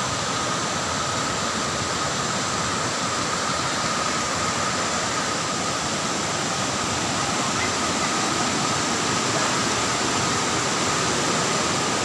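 Steady rushing of a waterfall, an even roar of falling water, with a thin steady high tone running through it.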